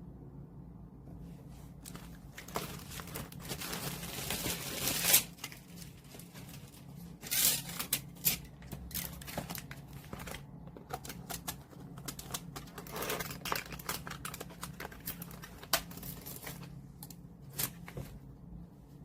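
Album packaging being opened by hand: a crinkling, tearing stretch of plastic or paper about two seconds in, then rustling and sharp clicks as the pieces are handled.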